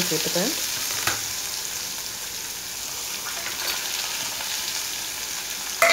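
Chopped onion and green chillies frying in hot oil over a tempering of mustard seeds, dals and curry leaves in an aluminium kadai, a steady sizzle. There is a click about a second in and a sudden louder burst near the end.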